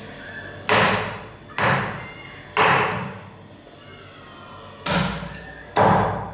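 Meat cleaver chopping boiled chicken feet on a round chopping board: five heavy chops, three about a second apart, a pause of about two seconds, then two more.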